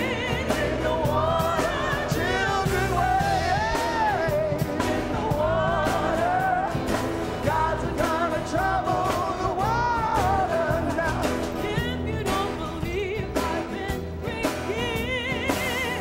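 Choir singing with vibrato over instrumental accompaniment that holds sustained low bass notes.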